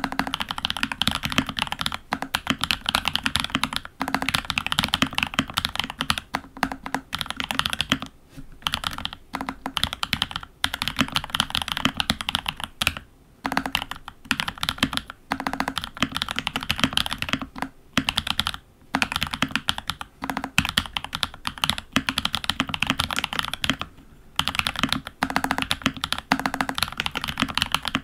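Typing on a FEKER68 mechanical keyboard with lubed Huano Iceblue switches, a Holy Panda clone with tactile stems, in Gateron housings, under Olivia-clone keycaps. A dense run of keystrokes with a few brief pauses.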